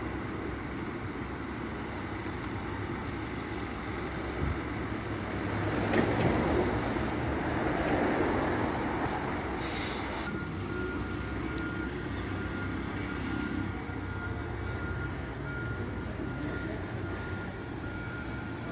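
Buses running at a bus station: a steady engine drone that swells for a few seconds about a quarter of the way in as a vehicle moves off or passes. About halfway through, a high, thin repeated beep starts and keeps going, like a vehicle's reversing alarm.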